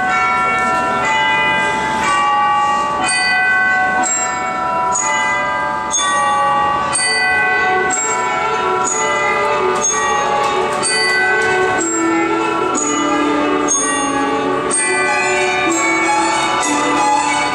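Music with a melody of struck, ringing bell-like notes, about two a second; a lower melody line joins about halfway through.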